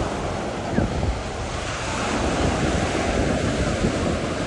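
Wind buffeting the microphone: a heavy, irregular low rumble with gusts, over a fainter steady hiss.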